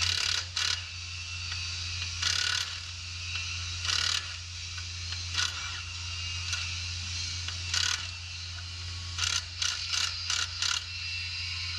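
Impact wrench with a 1-1/8 inch socket loosening the nine bolts around a harvester's external chopper timer. It gives about a dozen short hammering bursts, spaced out at first and then several in quick succession near the end, over a steady low hum.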